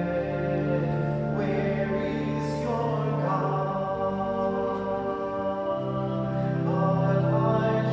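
A slow hymn sung with organ accompaniment: long held sung notes over steady sustained chords, changing pitch every second or two.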